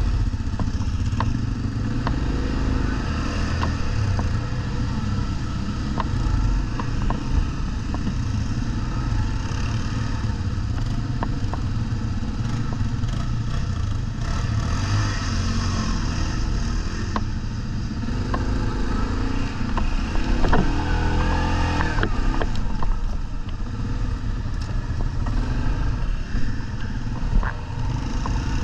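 ATV engine running with a heavy low rumble and scattered clicks and knocks, revving up and back down briefly about twenty seconds in.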